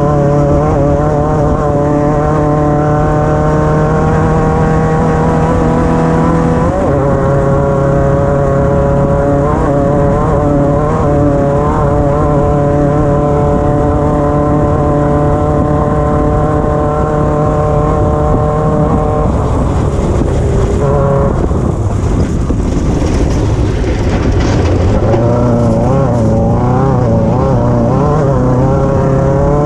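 Competition car's engine running hard at a near-constant pitch for long stretches, with a brief step in the note about seven seconds in. For several seconds past the twenty-second mark the note wavers and breaks up, then it settles back to a steady drone near the end.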